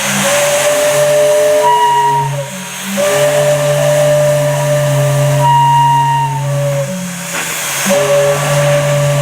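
Several steam whistles blowing at once over a hiss of steam. A deep low tone is held almost throughout, while higher whistle tones cut in and out every couple of seconds, shifting the chord.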